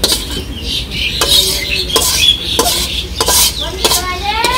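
A metal spoon scraping cooked shutki bhuna (dried-fish curry) out of a tilted metal wok into a steel bowl: repeated scrapes and clinks of metal on metal, roughly every two-thirds of a second. There is a short rising squeak near the end.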